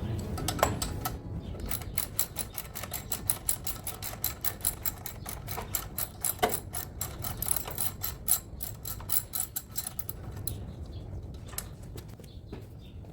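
Rapid mechanical clicking, several sharp clicks a second, thinning out and stopping about ten seconds in.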